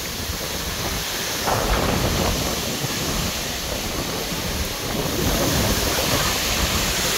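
Heavy storm rain pouring down in strong wind, with the wind buffeting the microphone as a low rumble. The noise is steady and grows a little louder about a second and a half in.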